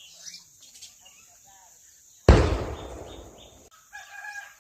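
Chickens in a village yard. A sudden loud, noisy burst comes about two seconds in and fades over about a second and a half, then a short chicken call sounds near the end, with small birds calling faintly around them.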